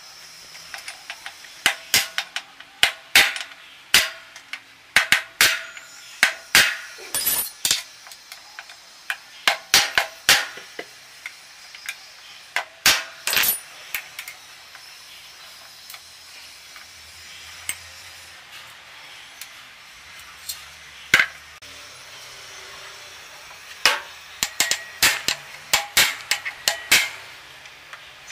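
Metal tools tapping and clinking on a disassembled two-stroke engine's cast aluminium crankcase: clusters of sharp knocks through the first half and again near the end, with a quieter stretch in the middle broken by one knock.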